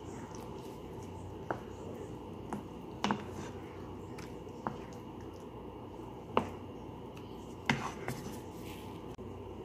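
Wooden spoon stirring a thick cream sauce in a nonstick frying pan, with a handful of sharp, irregular taps of the spoon against the pan, the loudest about six and a half seconds in and again just under eight seconds in, over a steady background hum.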